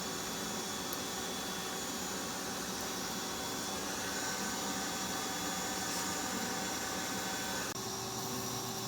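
Homemade bee vacuum running steadily, an even rushing hum with a few faint steady tones in it. Its sound shifts slightly near the end.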